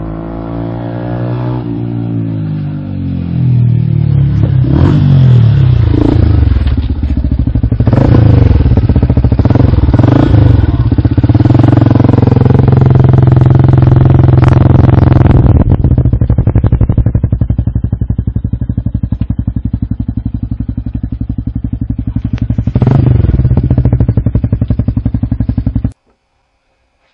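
Yamaha WR125R's single-cylinder four-stroke engine through a MIVV Stronger steel exhaust, growing louder over the first few seconds, then idling with repeated throttle blips that rev it up and let it fall back. The sound cuts off suddenly near the end.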